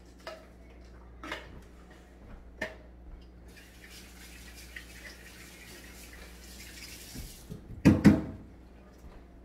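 Kitchen tap running into the sink for about four seconds, then a single loud knock near the end; a few light knocks come before the water.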